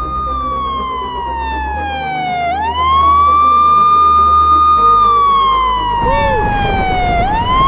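Emergency-vehicle siren wailing loudly: a high tone that holds, slides slowly down over about two seconds, then sweeps quickly back up, twice.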